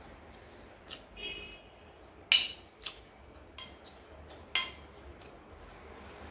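Metal spoon clinking against a ceramic bowl while scooping up food: a handful of sharp clinks, the two loudest, about two and a half and four and a half seconds in, ringing briefly.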